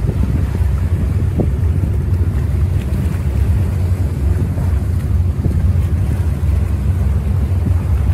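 Strong wind buffeting the phone's microphone, a steady loud low rumble, over the wash of a choppy sea.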